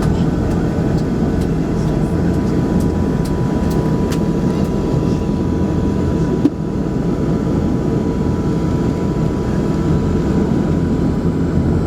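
Cabin noise of an Embraer 120 Brasilia's twin turboprop engines running: a steady low drone with a steady whine on top. A brief click about six and a half seconds in.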